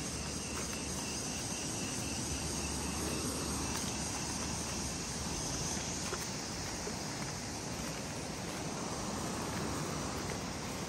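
Insects buzzing steadily and high-pitched over a constant outdoor rushing noise.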